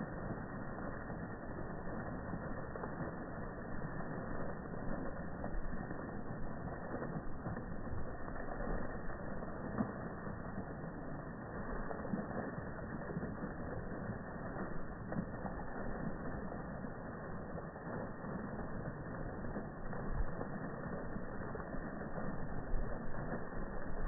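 Fountain jet splashing steadily into its pool, a continuous rush of falling water.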